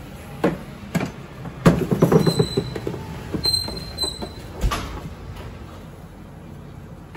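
Kitchen clatter of a plastic tub of grated cheese being dragged and set down on a steel counter: two single knocks, then about a second of rattling, scraping knocks, and a heavier thump a little past halfway.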